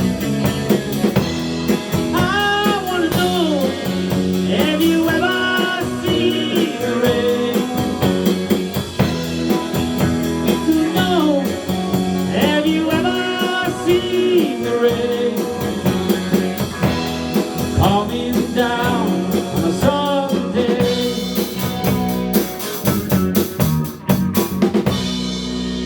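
Live rock band playing in a rehearsal room: a lead vocal over guitar, bass and drum kit. About twenty seconds in the singing stops and the drums play a run of cymbal hits as the song winds down.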